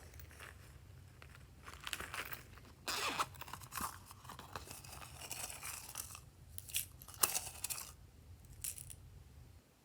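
Glossy slime being mixed and pressed by hand, giving irregular crackly, sticky noises. These come in uneven bursts, loudest about three seconds in and again around seven seconds, over a faint steady low hum.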